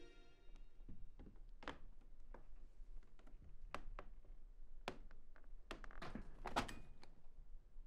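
Irregular soft knocks and taps, as of wood or footsteps on boards, with a denser cluster about six and a half seconds in, over a faint steady low hum. The plucked-string music dies away at the very start.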